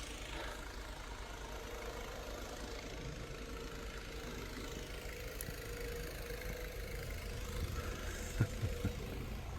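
An engine running steadily at low speed, a constant hum with a faint steady whine, with two soft knocks near the end.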